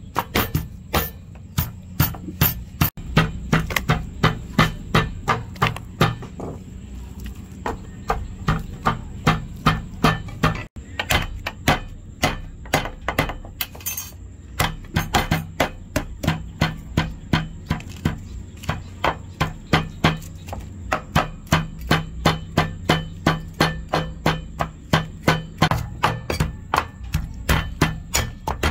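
Wooden pestle pounding green leaves in a mortar, and a cleaver chopping garlic on a wooden chopping board: steady dull thuds at about three strikes a second, with a brief pause about six to eight seconds in.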